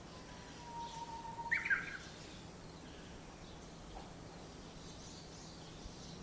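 Songbirds chirping in a tree, faint high calls scattered throughout, with one louder burst of chirps about a second and a half in. A steady low hum runs underneath.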